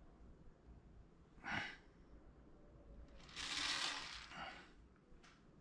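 A person breathing close to the microphone: a short breath about a second and a half in, then a longer exhale from about three and a half seconds in.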